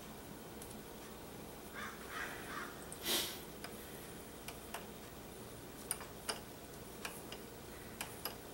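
Quiet room with a few short harsh rasping sounds about two seconds in, then a brief louder hiss-like burst, followed by scattered light clicks and ticks.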